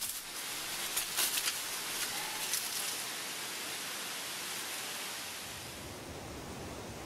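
A steady hiss of noise with a few short rustles and crackles in the first three seconds; the hiss softens near the end.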